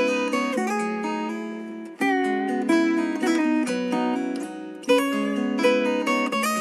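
MIUI 9 phone ringtone: a plucked, guitar-like melody whose short phrase starts over about every three seconds.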